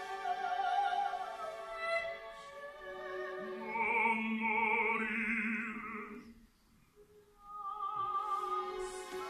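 Operatic singing with wide vibrato over a soft orchestra, from a soprano and a baritone in duet. The sound drops away almost to nothing about two-thirds of the way through, then the singing resumes.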